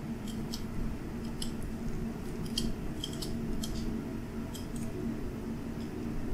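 Boning knife cutting meat off a side of beef along the bone: a scatter of short, crisp clicks and scrapes from the blade working against bone and tissue, over a steady low hum.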